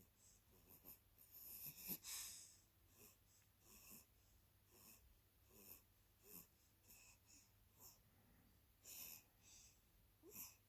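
Faint, wheezy snoring of a sleeper: short hissing breaths about once a second, the loudest ones about two seconds in and near the end.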